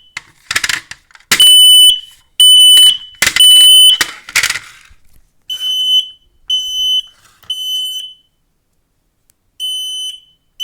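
Kidde 10-year smoke alarm sounding its fire-alarm pattern: high-pitched beeps about half a second long in groups of three, a pause, then three more, the first group loudest. The alarm keeps going even though its push-to-hush button has been pressed. Two short rushes of noise come in about half a second in and again at about four and a half seconds.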